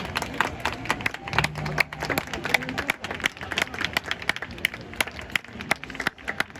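Stadium crowd of football supporters clapping, many sharp claps over a steady crowd murmur.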